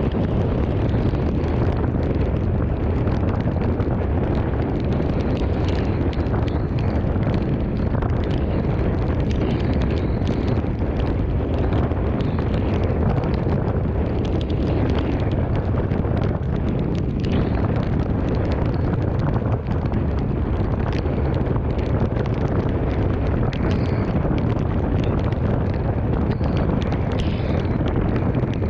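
Strong thunderstorm wind blowing hard and steadily across the microphone, with many small ticks scattered on top.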